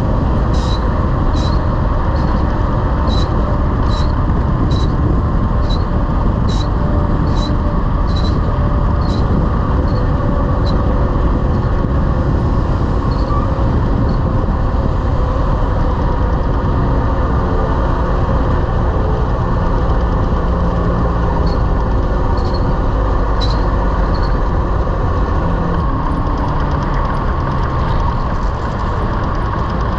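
Heavy-haul semi truck driving, with steady engine and road noise. A run of evenly spaced ticks, a little more than one a second, lasts through the first third and comes back briefly about two-thirds of the way in.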